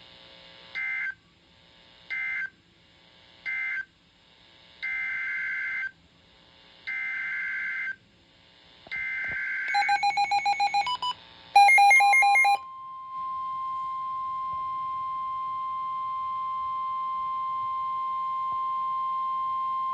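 NOAA Weather Radio emergency alert data tones: three short screeching bursts of digital code that end one warning, then three longer bursts that head the next severe thunderstorm warning. Weather radio receivers then beep rapidly in alarm, and the single steady warning alarm tone sounds for the rest.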